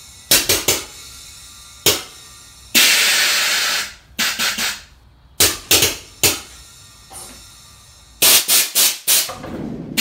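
Chevy C10's air-ride suspension valves being switched: short, sharp pops of air, mostly in quick groups of two to five, and one hiss of rushing air lasting over a second about three seconds in, as the air bags fill and dump.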